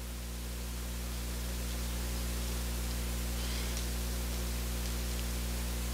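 Steady hiss with a low electrical hum from the microphone and sound-system chain, growing slightly louder over the first two seconds and then holding level.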